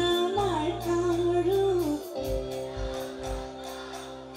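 Live stage music: a singer holds a wavering melody line for about two seconds over heavy bass, then the band carries on with held chords and a few deep bass beats.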